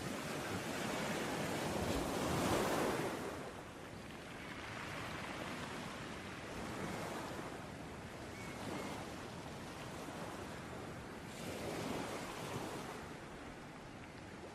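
Ocean waves breaking and washing on a beach: a steady surf hiss that swells as a wave breaks about two seconds in, ebbs, and swells again near the end.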